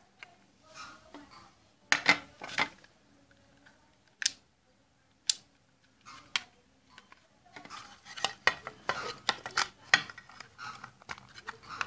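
Handling noise from a digital multimeter's plastic case and a 9-volt battery being fitted into it: a few sharp separate clicks in the first half, then a busy run of small clicks and scraping in the second half.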